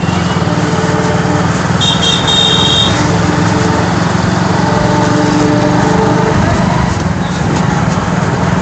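Motorcycle engine running steadily under way, heard from the rider's seat, with road and traffic noise around it. A brief high beep sounds about two seconds in.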